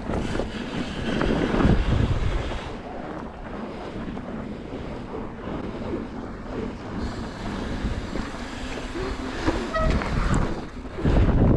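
Mountain bike tyres crunching over fresh snow, with wind buffeting the microphone hardest about a second in and again near the end.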